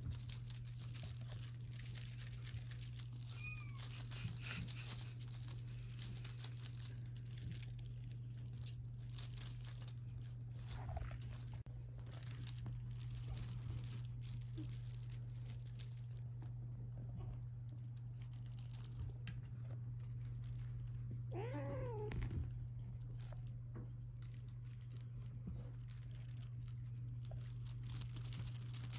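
A kitten meows, most clearly once about three-quarters of the way through, with a couple of fainter mews earlier. Soft rustling and scratching from play with a feather wand toy runs beneath, over a steady low hum.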